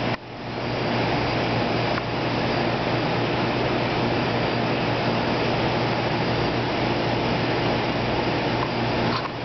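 Steady machine hum with an even hiss of running equipment. It drops out briefly just after the start and comes back within about a second.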